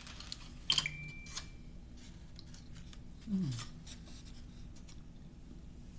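Crunching and chewing on pieces of oven-baked cornstarch: irregular sharp crisp crackles, loudest about a second in, with an appreciative hummed "Mmm" about three seconds in.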